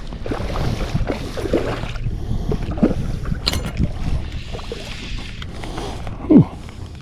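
River water sloshing and splashing close by, over a steady low rumble, with irregular small splashes and one louder, sharper splash about six seconds in.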